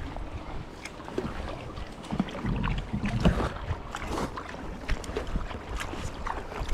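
Kayak paddles dipping and splashing in sea water, with irregular strokes and drips.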